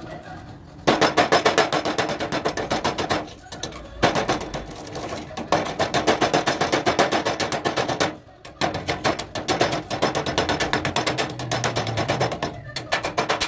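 Hand hammer tapping rapidly, several strikes a second, on a clay-coated knife blade resting on a steel tube, chipping the baked clay off the hardened blade. The tapping comes in three runs, pausing briefly about three seconds in and again about eight seconds in.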